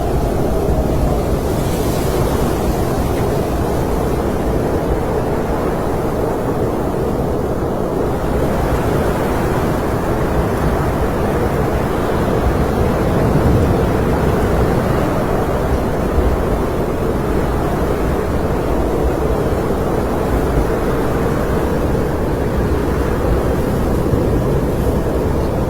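Snowstorm wind blowing steadily, a dense low rush that swells a little about halfway through.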